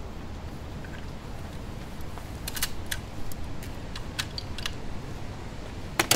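Wind rumbling on the microphone, with a few sharp clicks of the crossbow being handled in the middle. At the very end comes the loud double snap of the Mission Sub-1 crossbow firing a bolt, the loudest sound here.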